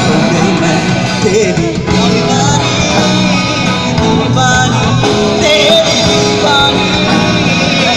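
Live rock band playing loud through a PA: electric guitars, drum kit and keyboard, with a voice singing over them.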